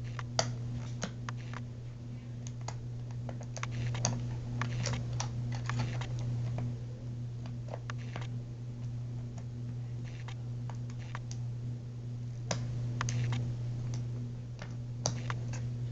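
Lock pick and tension tool clicking and scraping in the keyway of a Sentry 1100 safe's pin-tumbler lock as the pins are worked, a run of small irregular clicks. A steady low hum runs underneath.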